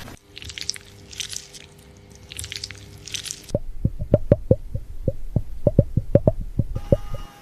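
Hands scrubbing wet, lathered hair in four short bursts, then a quick run of sharp thumps, about five a second, as the wash moves into a patting massage.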